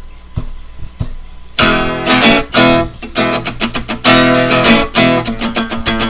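Intro music of strummed guitar chords, coming in strongly about a second and a half in after a quiet start with a few faint taps.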